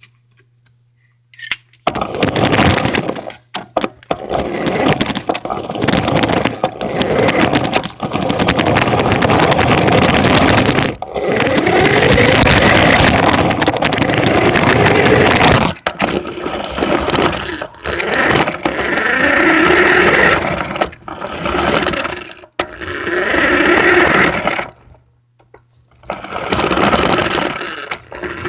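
Radio-controlled truck driving in bursts: a harsh, rattling motor-and-drivetrain noise with a whine that rises and falls in pitch. It cuts out briefly several times, longest for about a second near the end.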